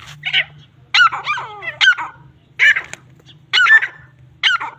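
Grey francolins giving harsh, repeated fighting calls, a loud burst about once a second.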